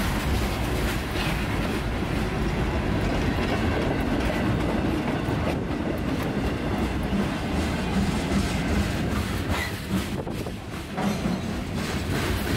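Freight train passing close by: a steady heavy rumble with the rapid clatter of boxcar and flatcar wheels over the rail joints, dipping slightly in loudness near the end.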